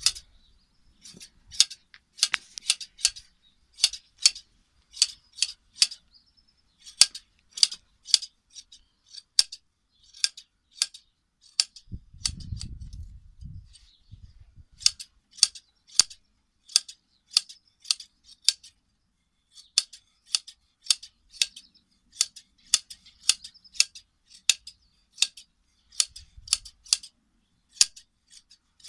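Scissors snipping through a sheep's fleece during hand shearing: crisp blade clicks in quick runs of two to four, with short pauses between runs.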